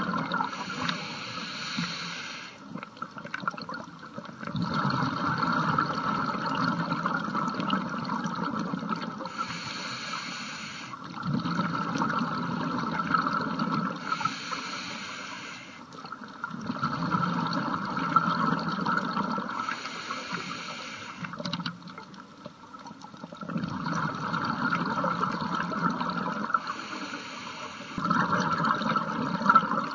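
Scuba diver breathing underwater through a regulator: a short hissing inhale, then a longer stretch of bubbling exhaust bubbles, repeated about five times with brief pauses between breaths.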